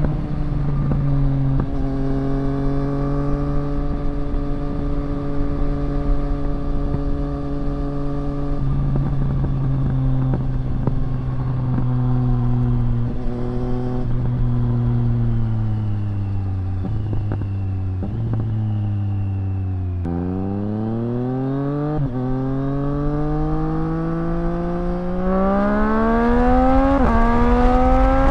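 2024 Triumph Street Triple RS's 765 cc inline-three engine running through a Zard titanium exhaust while riding. The engine note sinks slowly as the bike slows for about twenty seconds, then climbs steeply under acceleration, dropping in pitch at two upshifts near the end, over a low wind rumble.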